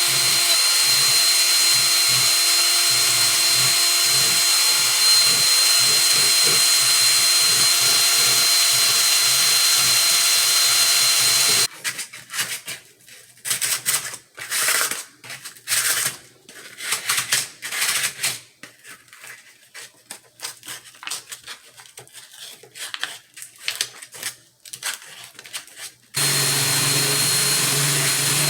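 Small high-speed power tool, a rotary grinder or drill, running with a steady high whine while grinding down the plastic or wood ribs inside a rifle stock's barrel channel. About twelve seconds in it stops and gives way to uneven scraping and rubbing. It starts up again near the end.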